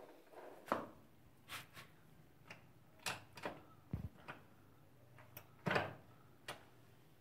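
A 1300cc car's manual gearbox being shifted by hand through its floor lever and shift cables: a string of separate clicks and clunks from the lever and selector mechanism, with a dull thud about four seconds in and the sharpest knock near the end as a gear engages.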